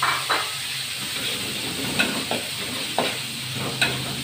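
Spice paste sizzling steadily in hot oil in a wok while a metal spatula stirs it, scraping and knocking against the pan several times. The paste is frying until it turns fragrant and cooked.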